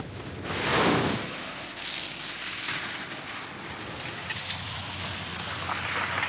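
A loud rush of salt-water spray over an Austin Metro about a second in, then the steady noise of the car driving with its engine running.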